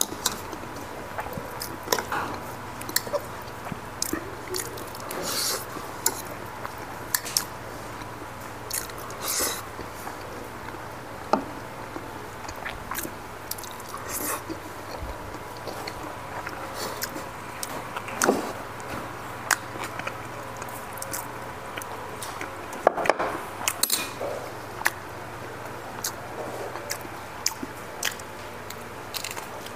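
Close-miked eating: chewing and biting, with irregular sharp clicks and clinks of a metal spoon against ceramic bowls, over a faint steady hum.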